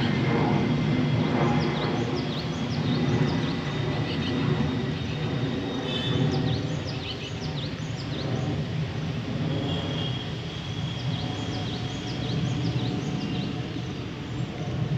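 Outdoor trackside ambience: a steady low rumble with many short, high chirps of birds scattered throughout.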